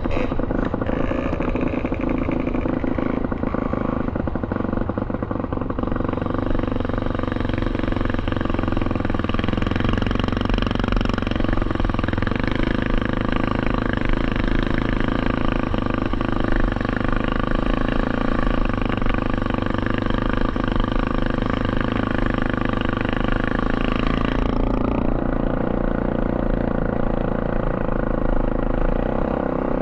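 Three-wheeler ATV engine running steadily under the rider, its pitch rising and falling slightly as it moves along a dirt track.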